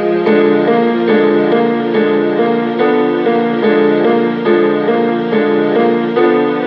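Instrumental keyboard music: a run of held chords that change at an even pace of about twice a second.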